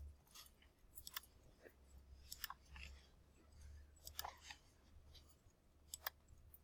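Faint computer mouse clicks, a dozen or so short clicks at irregular intervals, over a low steady hum.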